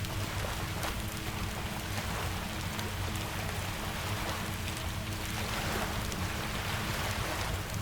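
Steady rain with a few sharp pops from a crackling wood fire, over a low rumble with slow swells like distant surf.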